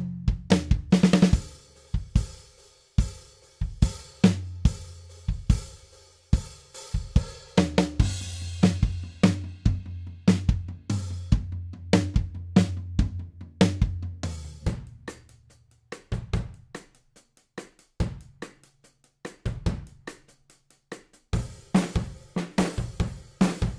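Sampled acoustic drum kit (Toontrack Stockholm SDX in Superior Drummer 3) playing a rock-pop groove at 125 BPM: kick, snare, hi-hat and cymbals through a punchy, clean mix preset, with a cymbal wash about 8 seconds in. A low held tone sits under the drums until about 15 seconds in, after which the kit plays alone. Near the end the kit changes to a drier, grittier preset.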